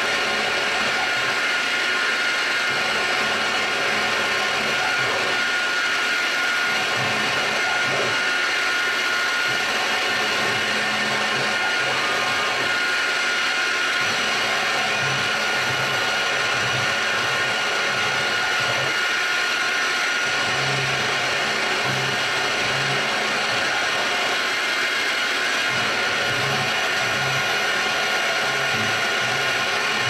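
A small CNC milling machine's spindle runs steadily as its cutter machines an aluminium control-panel plate, giving a steady whine over a dense hiss. Short low hums come and go underneath.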